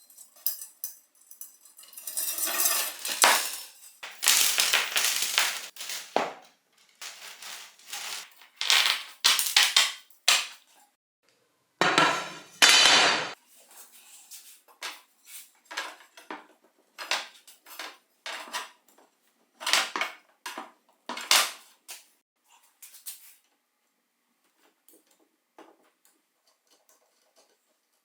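Metal bicycle parts and hand tools clinking, knocking and scraping in irregular bursts during hands-on disassembly, busiest in the first half and sparse near the end.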